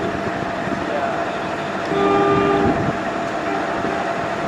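Steady running noise of a train at a station, with one short train horn blast of under a second about two seconds in.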